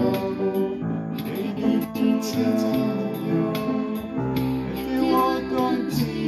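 Upright piano playing a slow ballad, a melody over sustained chords in both hands that change every second or so.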